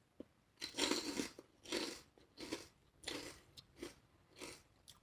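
Close-miked chewing of a mouthful of lettuce-wrapped taco, crunchy with pork skins, in regular chews about every two-thirds of a second.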